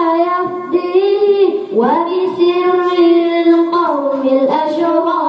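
A boy singing an Arabic sholawat about the Hijra into a microphone, drawing out long held notes with ornamented turns in pitch.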